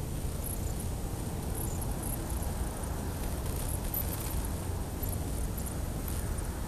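Steady low rumble with no clear pitch, of unknown origin, with faint, scattered high-pitched chirps or squeaks over it.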